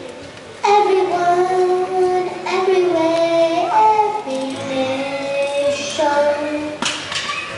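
A boy singing a solo, in short phrases of held notes, starting a little under a second in.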